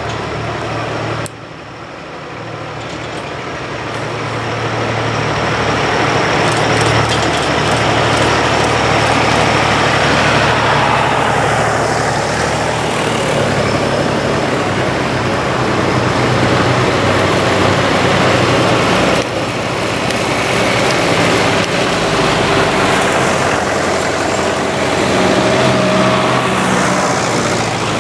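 Several tractor engines running as a line of tractors drives up a lane. They grow louder over the first few seconds as they approach, then run steadily, and a thin whine comes in near the end.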